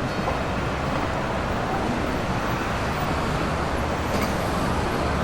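Steady rush of water pouring over the Trevi Fountain's rocks into its basin, an even hiss with no breaks.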